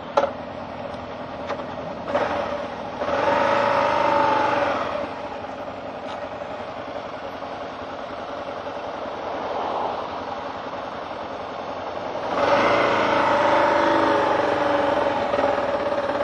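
Motorcycle engines running. An engine grows louder about two to three seconds in and again about twelve seconds in, holding a steady tone for a few seconds each time.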